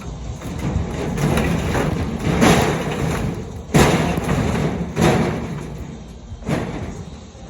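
Heavy scrap metal from a junked car being handled: a rough, noisy stretch, then three heavy thuds about four, five and six and a half seconds in.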